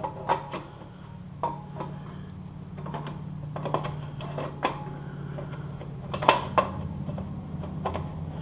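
Irregular metallic clinks and knocks as motorcycle exhaust parts are worked on by hand, a few of them sharp and loud, over a steady low hum.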